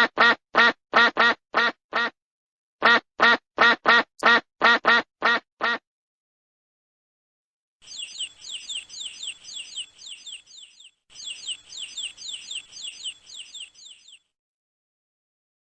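A duck quacking in two quick runs of short quacks. After a pause comes a high-pitched chirping of quick, falling chirps, several a second, in two stretches.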